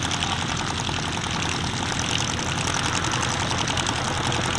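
Calidus autogyro with a 115 horsepower Rotax 914 engine flying a display, its engine and propeller running steadily with a fast, regular beating.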